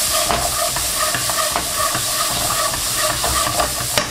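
Diced onion and green pepper sizzling in hot oil in a nonstick wok while a plastic slotted spoon stirs them, scraping and knocking lightly against the pan. The last knock is the sharpest, just before the end.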